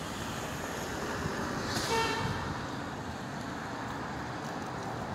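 Steady street traffic noise, with one short horn-like toot about two seconds in.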